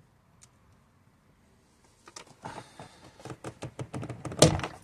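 Small clicks and rattles of a dropped screw being fished out of a car door and handled, with a sharper knock near the end. Almost nothing is heard for the first two seconds.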